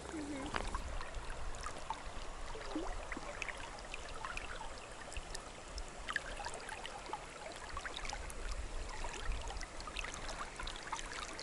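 Soft flowing river water lapping and trickling close by, dotted with many small splashes and drips.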